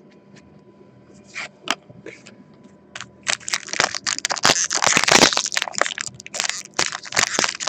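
Trading-card pack wrappers crinkling and crackling as they are handled and crushed, a dense run starting about three seconds in after a few light clicks.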